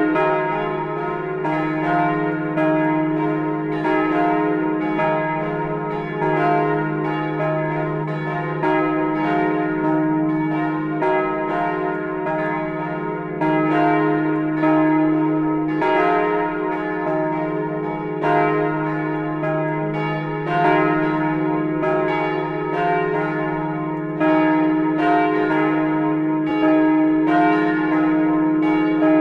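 Several church bells ringing together in a partial peal (only some of the tower's bells). Their strikes overlap in an uneven, continuous pattern over a steady sustained hum.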